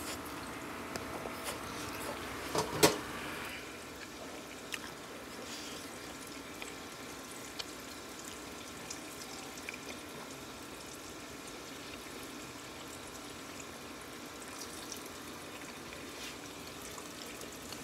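Battered eggplant strips deep-frying in a skillet of hot oil: a steady sizzle with scattered small crackles. A couple of sharp knocks come about two and a half seconds in.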